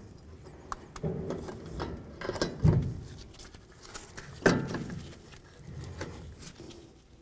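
Front brake caliper being slid over the brake pads onto its bracket by hand: metal scraping and clunking, with two louder knocks about two and a half and four and a half seconds in as it seats.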